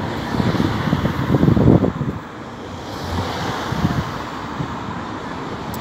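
Wind buffeting a phone's microphone in low gusts, strongest in the first two seconds, over a steady noise of road traffic.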